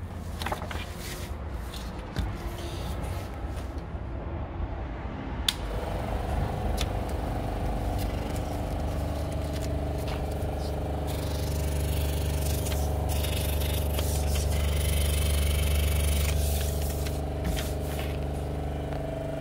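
EBA 721-06 LT guillotine paper cutter. For the first few seconds there are scraping and clicking noises; about five seconds in, its electric drive starts and runs with a steady hum.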